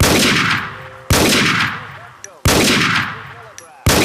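Steyr SSG 69 PII sniper rifle firing four shots, about one every second and a quarter. Each is a sharp crack followed by a long echoing tail that fades over about a second.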